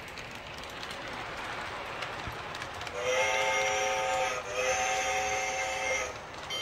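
Toy electric train running on its track, getting louder as it comes closer, then its built-in sound system sounds two long chord-like horn blasts about three seconds in.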